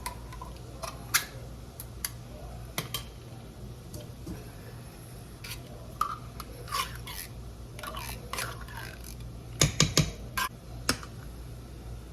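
Scattered clicks, taps and short scrapes of a can of cream of chicken soup and a spoon being handled over a cooking pot, with a quick run of sharp knocks about ten seconds in, over a low steady hum.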